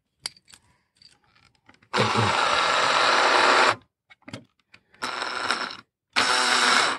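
Cordless drill-driver driving small screws in three runs: a long run of almost two seconds, a short one, then another long one near the end. A few light clicks come before the first run.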